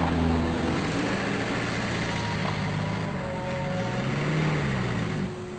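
Motor vehicle engine running steadily, with the engine note rising and falling once about four seconds in.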